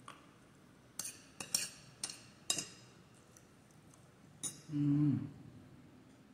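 Metal fork clinking against an amber glass bowl while eating: a handful of light clinks in the first three seconds and one more a little after four seconds, followed by a short hummed vocal sound.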